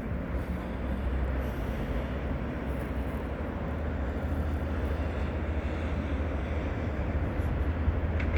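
Steady low rumble with an even noise over it, heaviest in the bass, with no clear rise or fall; a short tick near the end.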